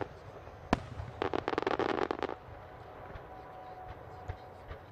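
Aerial fireworks shells exploding: a single sharp bang a little under a second in, then a dense volley of rapid small bangs lasting about a second. After that only a few faint pops.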